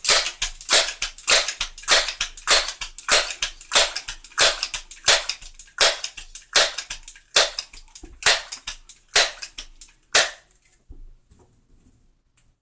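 Crosman 1322 multi-pump pneumatic air pistol being pumped up with its forearm lever, a steady run of rapid pumping strokes charging the valve for a 15-pump shot. The strokes stop about ten seconds in.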